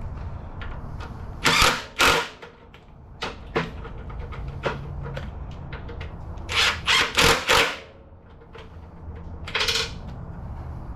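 Seven short bursts of tool noise as bolts are worked on a car's transmission. Two come about one and a half seconds in, four follow in quick succession around seven seconds, and a last one comes near the end, all over a low steady hum.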